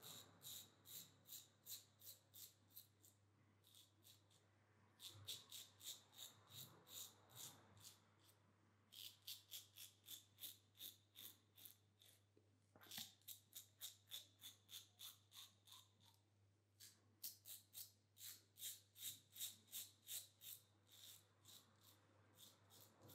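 Double-edge safety razor scraping through lathered stubble in short, quick strokes, about three a second, in runs of a few seconds with brief pauses between. Faint.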